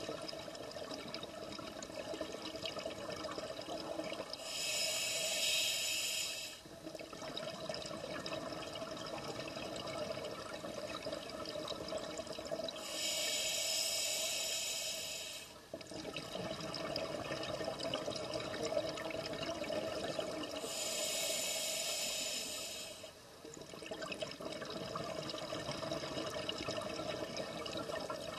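Scuba diver breathing through a regulator underwater. There are three hissing breaths about eight seconds apart, each about two seconds long, with a steady bubbling, rushing sound between them.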